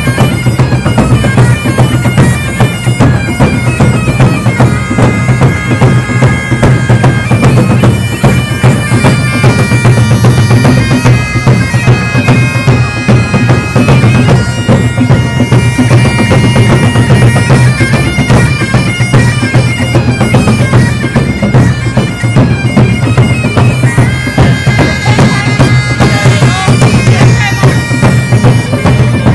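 Highland bagpipes playing a tune over their steady drone, with a band of large drums beaten with sticks and mallets in a steady rhythm.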